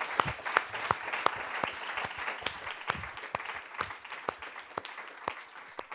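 Audience applauding, a dense patter of clapping with single louder claps from people close by standing out, easing off slightly toward the end.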